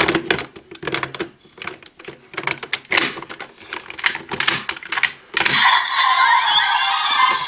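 Rapid plastic clicking and rattling of toy raise buckles being handled and fitted into a Kamen Rider Geats DX Desire Driver belt. About five seconds in, the belt's electronic sound effects start and play on steadily.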